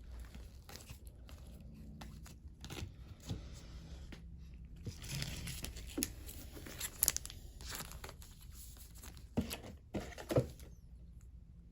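Light rustling and crinkling of plastic and paper as trading cards and pack wrappers are handled, with a few sharp taps and clicks, the loudest about seven and ten seconds in.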